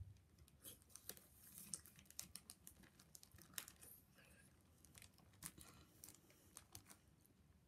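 Faint crinkling of a clear plastic bag as it is snipped open with scissors and handled: a run of small sharp crackles.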